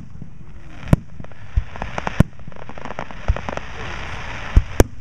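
Aerial fireworks shells bursting, sharp bangs roughly every second or so, two in quick succession near the end. Under them runs a fizzing crackle from the burning stars, strongest in the second half.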